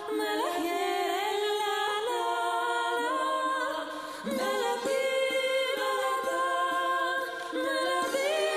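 Performance music of unaccompanied voices singing: several voices hold long notes and slide between pitches. The music briefly softens about halfway through before swelling again.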